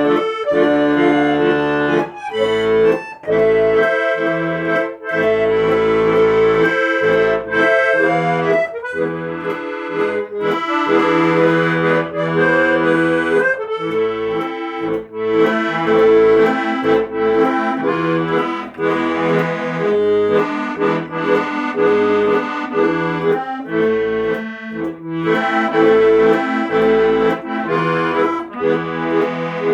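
Instrumental music: a melody over held chords and bass notes that change every second or so.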